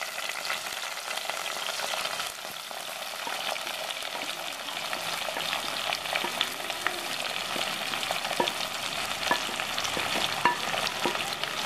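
Sliced onions sizzling as they are tipped into hot oil in a clay pot: a steady frying hiss with scattered sharp crackles.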